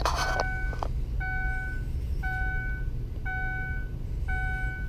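A 2007 Ford Taurus's dashboard warning chime sounding five times, each a steady half-second tone, about once a second, over a low steady rumble.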